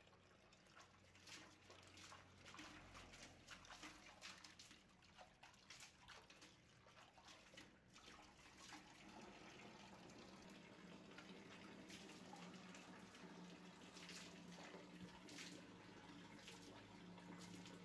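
Faint splashing and dripping of water as a face is washed at a tap, with scattered small splashes. From about halfway a faint steady hum takes over.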